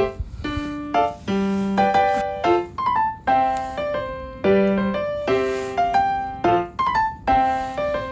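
Background music: a light piano or keyboard tune, with notes struck about every half second and each dying away.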